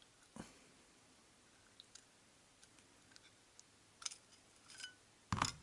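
A few scattered clicks and taps of a long driver and hands working a small Traxxas TRX 3.3 nitro engine while the cylinder sleeve is being freed. The loudest knock comes near the end.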